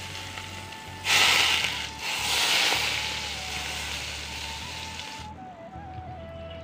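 Hot oil poured from a wok onto raw chicken mince, sizzling with a loud hiss. It comes in a short burst about a second in, then a longer pour from about two seconds that cuts off just past five seconds.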